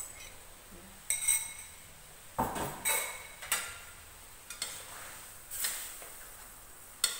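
A metal spatula clinking and scraping against a stainless steel wok while food is stirred, with about eight separate strikes that leave the wok ringing briefly.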